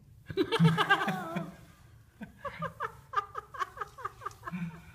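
High-pitched laughter: a drawn-out, wavering squeal of a laugh, then a quick run of giggles at about five a second.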